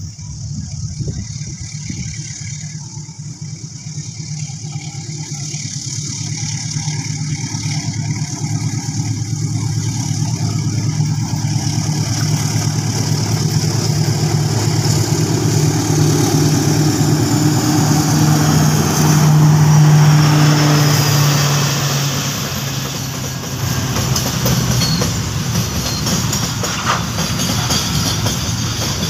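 GE CC 206 diesel-electric locomotive hauling a container freight train approaches and passes close by, its engine hum growing steadily louder to a peak about two-thirds of the way through. After it passes, the container wagons roll by on the rails.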